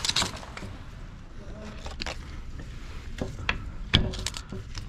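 Scattered clicks and knocks of a Belimo valve body and actuator being handled and spun by hand onto threaded pipe, with a sharper knock about four seconds in.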